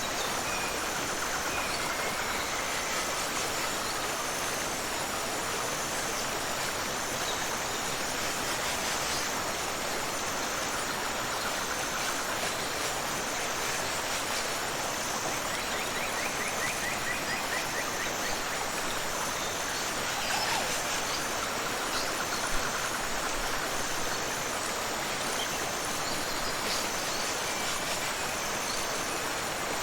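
Steady rush of a tropical waterfall and river flowing, an even, unbroken water noise. A faint high chirp repeats about once a second over it, with a short rapid trill near the middle.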